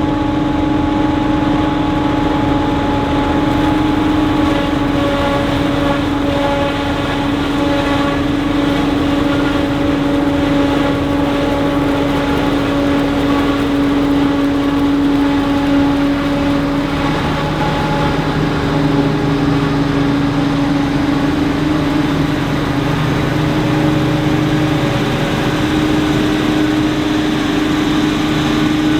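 Self-propelled forage harvester chopping maize, its diesel engine and chopper running loud and steady with a constant hum. A second, lower hum joins a little past halfway.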